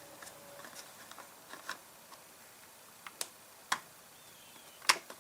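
A handful of light clicks and taps from plastic chainsaw parts being handled and fitted together, scattered over a few seconds, the loudest near the end.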